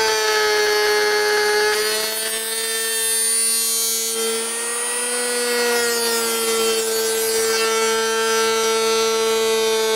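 Router spinning in a router table with a steady high whine, as the bit cuts box-joint slots in a scrap board through a box joint jig; the pitch sags slightly a couple of times as the cut loads the motor.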